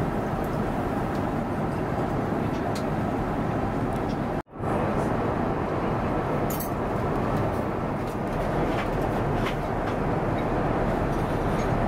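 Steady rushing cabin noise of an Airbus A350-900 in flight, the air and engine roar heard from inside the cabin, with a few faint clicks. It drops out for a moment about four and a half seconds in.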